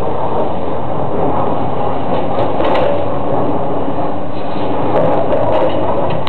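Building demolition: a loud, steady rumble of heavy machinery and falling rubble, with sharp metallic scrapes and clanks in two clusters, a few seconds apart.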